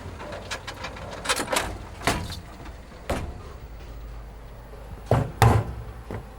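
A series of irregular sharp knocks, about half a dozen, with the two loudest close together about five seconds in.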